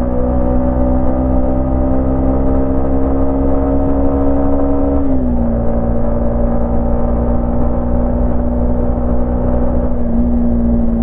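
Yamaha MT-15's 155 cc single-cylinder engine and exhaust running at a steady pace while riding, the pitch creeping up slowly, dropping slightly about five seconds in, then holding steady.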